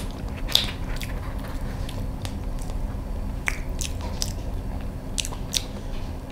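Close-up chewing of a mouthful of soft cheese cake topped with salted egg and pork floss: wet mouth clicks and smacks at irregular intervals.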